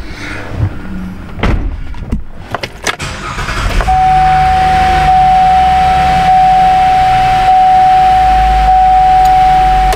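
Chevy Traverse's V6 engine cranking and starting about four seconds in, then running at idle with a steady whine from the electric cooling fans running at high speed, a state set off by stored fault codes. A few light clicks come before the start.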